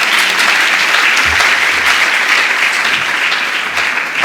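Audience applauding, a dense, steady clapping from a roomful of people that begins to thin near the end.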